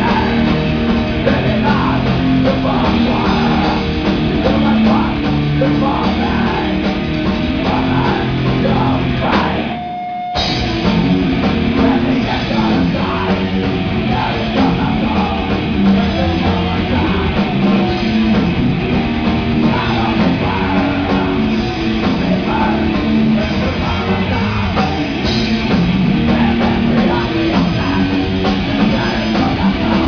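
Heavy metal band playing live: distorted electric guitars, bass guitar and drum kit. About ten seconds in the band stops briefly, leaving one held note, then comes back in.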